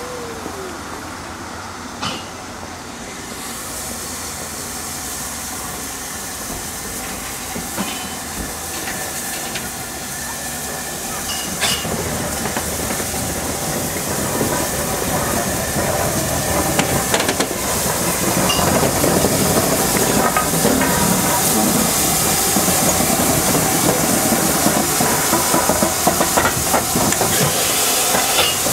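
Standing GNR N2 0-6-2 tank locomotive No. 1744 hissing steam. The hiss grows steadily louder and is loudest in the second half.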